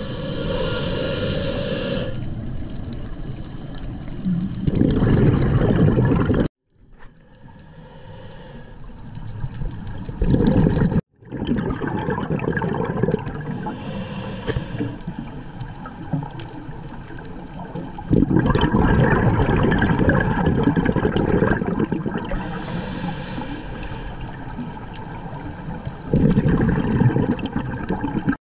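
Scuba diver breathing through a regulator underwater: hissing inhalations alternating with bubbling exhalations over several slow breaths. The sound drops out abruptly twice midway.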